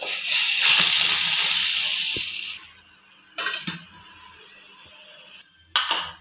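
Steam from boiling water hissing loudly around a tray of dumplings in a stainless steel steamer, stopping after about two and a half seconds. Then the steel lid clanks as it is fitted, a fainter hiss goes on, and the lid clanks once more near the end.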